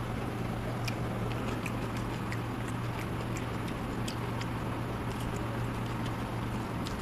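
Eating sounds by hand from a steel plate: sparse light clicks and smacks of chewing and of fingers working rice, about one or two a second, over a steady low hum and hiss.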